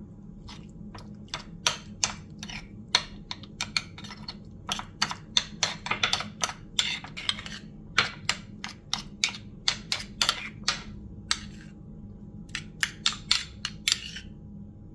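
A spoon clicking and scraping against a bowl while stirring cream cheese into cucumber pulp, in quick, irregular strokes, with a pause of about a second near the end.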